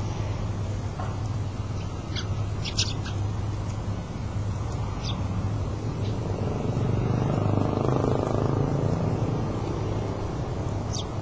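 Small birds giving a few short, high chirps, singly and in a quick cluster about three seconds in, over a steady low rumble that grows louder for a few seconds past the middle.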